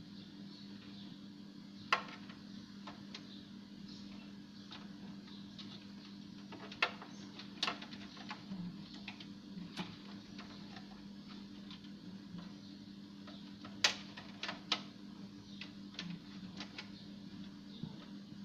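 Irregular sharp clicks and taps, a few seconds apart, over a steady low hum.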